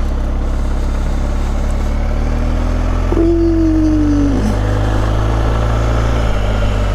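BMW R1250GS boxer-twin engine running at low road speed, picking up a little speed. About three seconds in, a steady tone, falling slightly in pitch, sounds for about a second over it.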